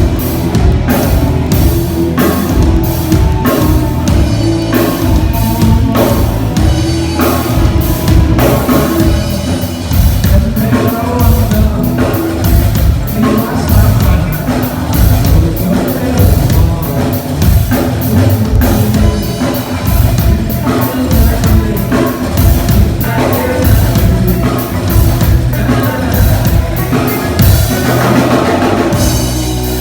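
A live band playing a rock-style song, driven by a drum kit keeping a fast, steady beat, with a singing voice over the instruments.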